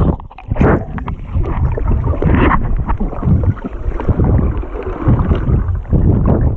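Wind buffeting the microphone in loud, gusty rumbles, mixed with sea water splashing and sloshing.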